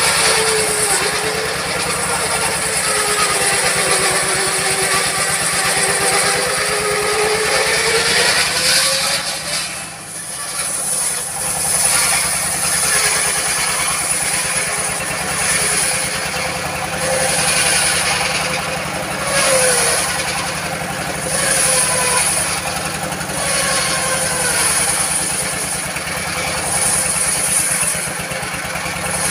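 Diesel-driven circular sawmill ripping a teak log: the engine runs steadily while the blade cuts, its pitch sagging slowly under load and picking up again as the cut finishes about nine seconds in. After a brief lull, repeated surges of high hiss follow as the saw bites into the wood again.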